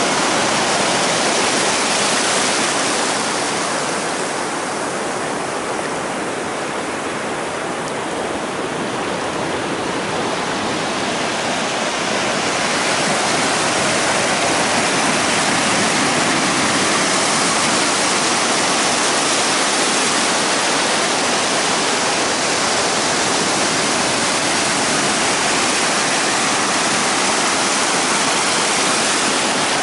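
Shallow surf washing up a sandy beach close to the microphone: a steady rush of foaming water. It eases a few seconds in and builds again about twelve seconds in.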